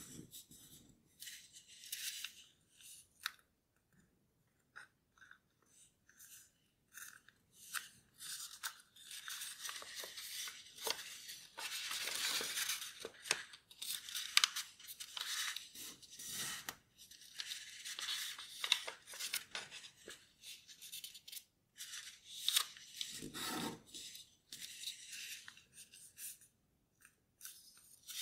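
Sheet of origami paper being folded and creased by hand: irregular rustling and crinkling with sharp crackles as the folds are pressed flat, pausing briefly a few seconds in.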